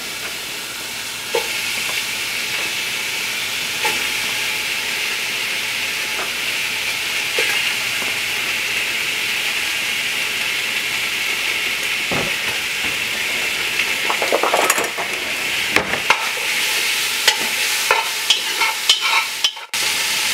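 Sliced bacon and hog jowl sizzling as it fries in a hot pot, a steady hiss that strengthens about a second in. Near the end, a run of sharp clicks and knocks from a utensil working in the pot.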